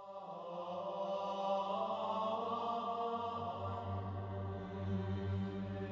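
Background music of long held, drone-like tones, fading in over the first second.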